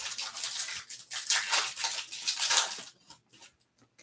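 Foil trading-card pack wrapper crinkling and tearing as it is pulled open by hand, for about three seconds, then a few faint light ticks.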